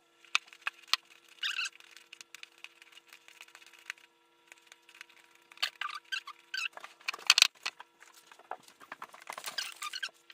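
Hands kneading and pulling fluffy shaving-cream slime: irregular wet squelches, sticky clicks and crackles, with a denser burst of squishing about seven seconds in and again near the end.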